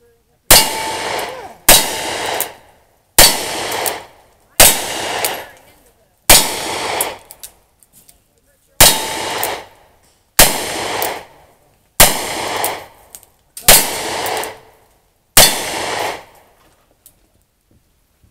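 Ten revolver shots fired one at a time, about one every second and a half, from single-action revolvers in a cowboy action shooting stage. Each is a sharp crack followed by a ringing echo that dies away over about a second.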